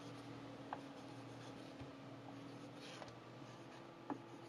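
Broad chisel tip of an alcohol-based sketching marker drawing letters on a ceramic tile: faint scratching strokes, with a couple of light ticks as the tip meets the tile.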